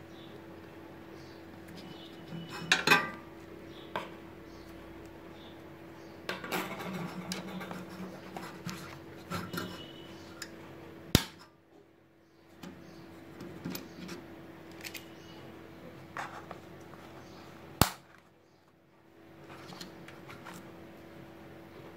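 Scattered clicks and clatter of plastic and metal as a hand handles miniature circuit breakers and a brass comb busbar in a plastic distribution box, with a cluster of clatter a few seconds in and two sharp clicks later on. A steady hum runs underneath.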